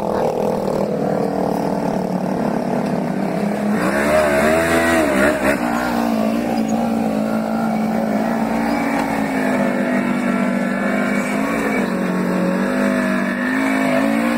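Side-by-side UTV engine running under load as it crawls up a rutted dirt climb. It revs up and back down about four seconds in, and again near the end.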